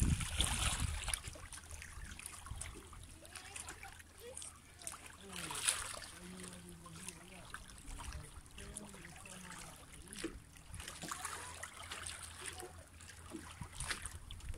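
Small waves lapping and trickling among shoreline rocks in shallow seawater, a soft steady wash with scattered little splashes.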